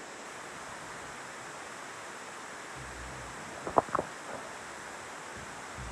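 Sleeping dog snoring: one low snore about three seconds in, then a few sharp clicks, the loudest sound, with the next snore starting near the end, over a steady hiss.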